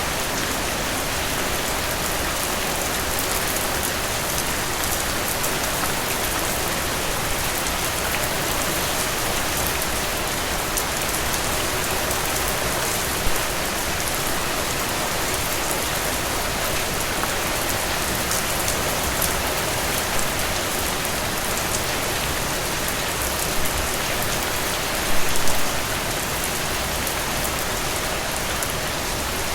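Heavy rain falling steadily, an even hiss across the whole range. A few louder drop hits stand out now and then, with a short cluster of them about 25 seconds in.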